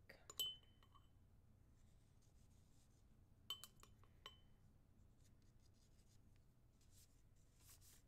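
Pencil clinking against a small glass jar of coffee paint as it is dipped: a sharp clink with a short ringing tone about half a second in, then three quick clinks around the middle. Faint scratching near the end.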